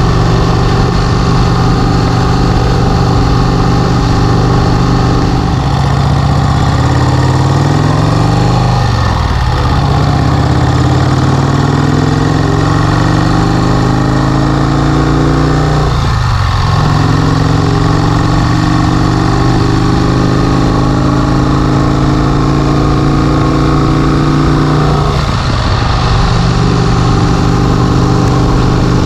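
1951 Vincent Rapide's 998 cc V-twin engine running under way. Three times its pitch climbs steadily and then drops sharply as the rider changes up a gear.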